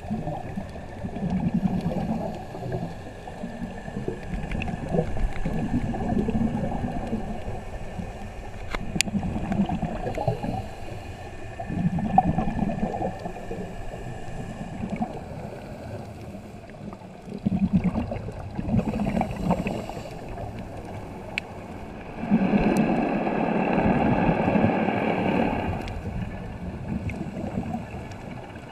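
Scuba diver's regulator underwater: exhaled bubbles gurgling in bursts every few seconds, one longer exhalation near the end, over a faint steady high hum.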